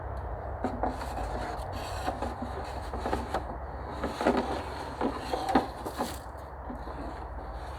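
Irregular knocks and scrapes of wood being handled, loudest about four and five and a half seconds in, over a steady low rumble.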